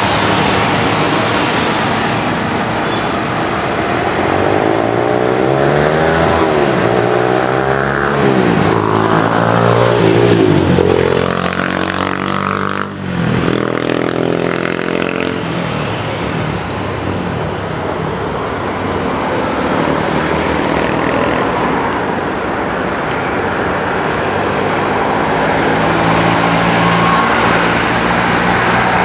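Jet airliner's engines passing close by, a loud continuous noise whose tone sweeps up and down as the aircraft goes past, loudest about ten seconds in.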